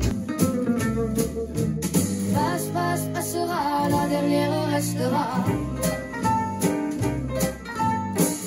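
Song music: a guitar-backed arrangement with a wordless sung line from about two seconds in.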